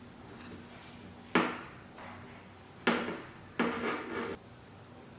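Plastic parts of an ultrasonic cool-mist humidifier being handled and set in place: three sharp clunks, the first alone and the last two close together, each dying away quickly.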